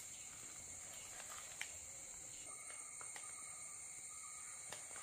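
Faint handling sounds: a few soft clicks and taps from fingers lifting and folding a thin rice palaada on a non-stick pan, the sharpest about one and a half seconds in, over a steady faint high-pitched background hiss.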